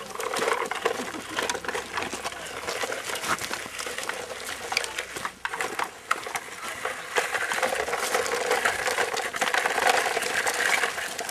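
A child making a buzzing engine noise with the mouth while pushing a toy truck, breaking off briefly about halfway through, with the scrape and crackle of its wheels over dirt and twigs.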